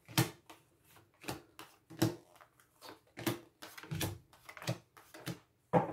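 Oracle cards being dealt one by one onto a wooden tabletop, each landing with a short tap or slap, in a quick run of repeated hits.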